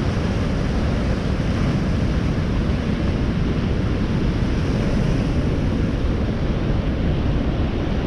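Heavy surf breaking and washing over rocks, a steady rush of noise, with wind buffeting the microphone.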